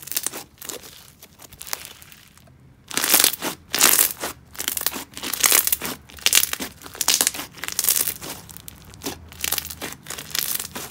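Crunchy clear-glue slime packed with marshmallow beads and crushed beads being squeezed and pressed by hand: repeated crackling crunches and bubble pops, with a short lull about two seconds in.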